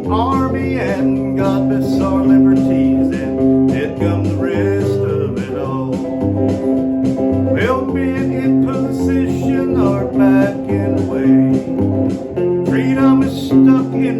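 Country music with guitar over a steady bass: an instrumental stretch between the sung lines, its lead notes bending in pitch.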